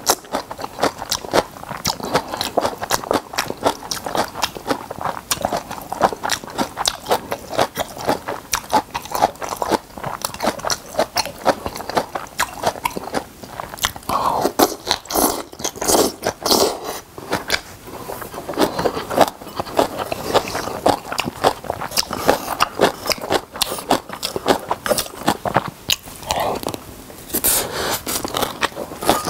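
Close-miked chewing of kimchi and rice: a quick, irregular run of crunchy bites and wet mouth sounds, louder about halfway through as a long strip of kimchi goes into the mouth.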